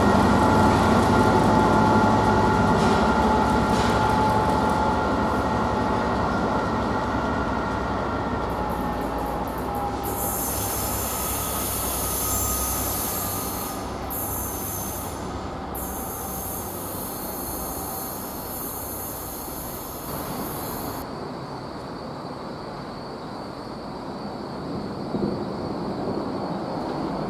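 Class 67 diesel locomotive, with its EMD two-stroke V12 engine, propelling a loco-hauled passenger train away, the engine and rail noise fading steadily as it recedes. A high wheel squeal sounds through the first eight seconds or so and then dies away.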